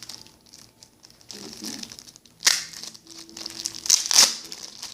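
Plastic bag packaging crinkling as it is handled, in irregular bursts, with the loudest crackles about two and a half seconds in and again around four seconds.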